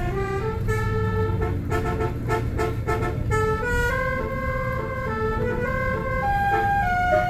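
Bus telolet horn playing a tune over the low rumble of the bus engine: quick short horn notes at first, then longer held notes stepping up and down in pitch.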